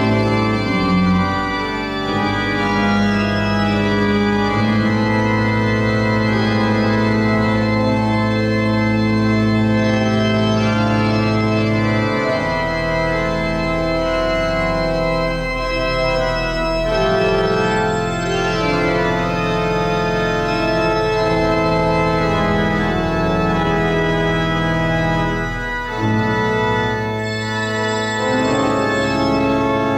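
Church organ played slowly: long sustained chords shifting over held deep pedal notes, a lower bass note coming in about twelve seconds in.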